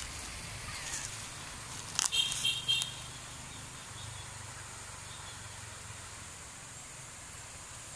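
Steady outdoor shore ambience, a low rumble of gentle waves and wind on a pebble beach. About two seconds in there is a brief run of high, quick repeated notes with a few clicks.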